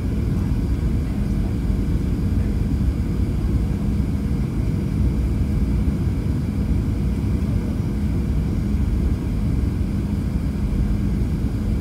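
Steady low cabin roar of a Boeing 737-700 descending on approach, heard from a window seat beside its CFM56 turbofan engine: engine and airflow noise with a faint steady hum.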